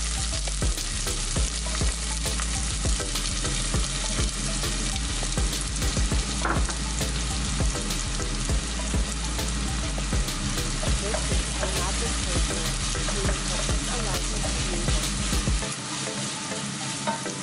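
Diced onions sizzling in freshly heated oil in a stainless steel saucepan: a steady frying hiss with many small crackling pops.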